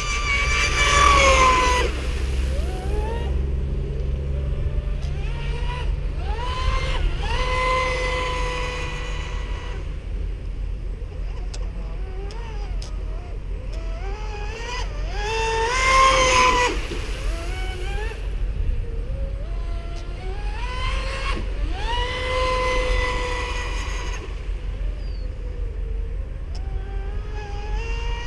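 TFL Ariane 2 RC speedboat's electric motor whining as it runs laps, the pitch climbing as the throttle opens, holding high at speed, then dropping again, several times over. It is loudest as the boat passes about a second in and again at about sixteen seconds.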